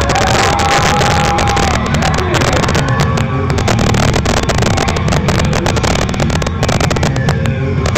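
Loud music played over a PA system.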